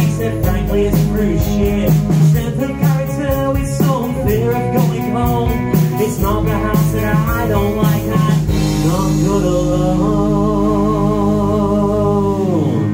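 Live rock band playing: a singer over electric guitar, bass guitar and drum kit with a steady beat. About two-thirds of the way through, the drumbeat stops and a long wavering note is held, sliding down in pitch near the end.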